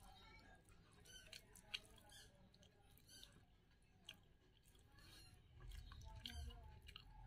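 Near-silent eating sounds: fingers mixing and squishing biryani with chickpea curry on a plate, with scattered small clicks and smacks and one sharper click just under two seconds in. A faint low rumble comes in near the end.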